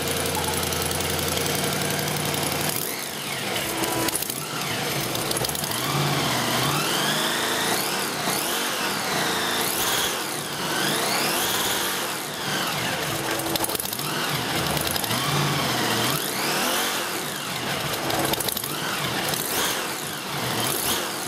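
Supercharged 357 cubic inch small-block Chevy V8 with a 6-71 blower, idling steadily for about three seconds and then revved up and down again and again in short blips.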